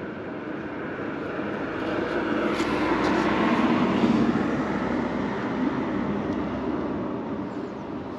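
A passing engine, swelling to its loudest about three to four seconds in and then slowly fading away.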